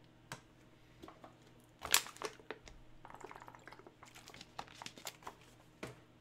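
Faint crinkling and light taps of trading-card packaging and cards being handled, with one sharper tap about two seconds in.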